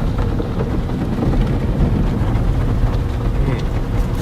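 Steady low rumble with a dense hiss over it, from automatic car wash machinery running.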